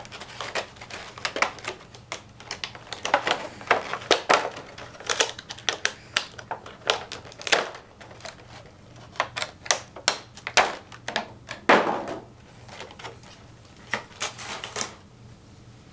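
Clear plastic clamshell packaging crackling, with many irregular sharp clicks, as it is handled and pried open.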